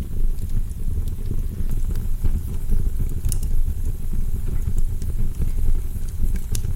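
Log fire in a fireplace burning, with a steady low rumble and scattered sharp crackles and pops.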